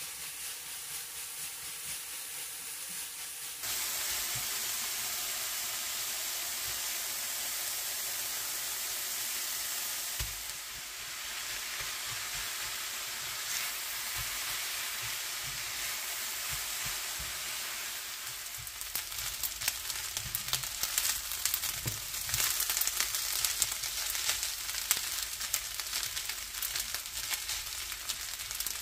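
Bracken fern, onion and rice sizzling as they stir-fry in a nonstick frying pan, with a spatula scraping and tapping the pan as it stirs. The sizzle steps up a few seconds in, and the spatula strokes come thick and fast in the second half.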